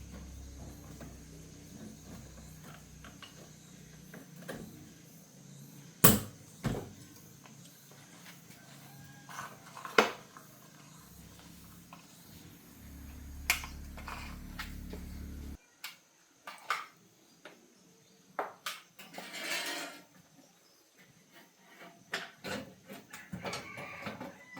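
Scattered clinks and knocks of metal tools and parts being handled, over a steady low hum that cuts off suddenly about two-thirds of the way through.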